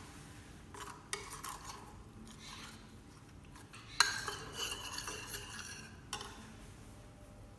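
Metal spoon stirring and scraping around a ceramic bowl, mixing custard powder into milk, with a few light clicks and one sharp clink about four seconds in.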